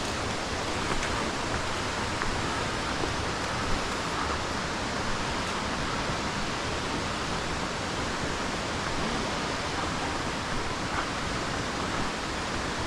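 Steady rushing of falling water from a waterfall, even and unbroken, with a few faint clicks.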